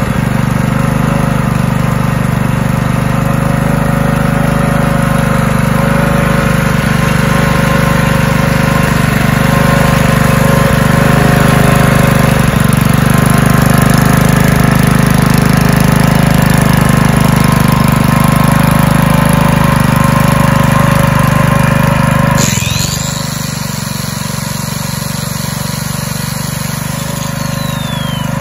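Honda GX120 single-cylinder four-stroke engine on a small generator running steadily, now running okay after a carburettor clean. About three-quarters of the way through, the sound drops sharply. A faint high whine follows and falls away in pitch near the end, in line with the angle grinder plugged into the generator winding down.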